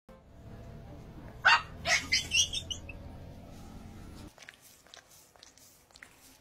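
Small chihuahua-type dog yapping: a quick run of about five high, sharp barks about a second and a half in, over a low steady hum that cuts off abruptly about four seconds in.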